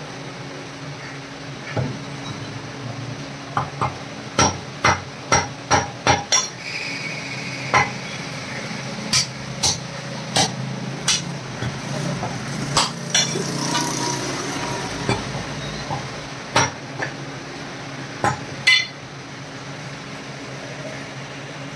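Heavy steel cleaver chopping mutton on a wooden chopping block: sharp, separate chops, a quick run of about six around four to six seconds in, then single chops spaced out until a little before the end.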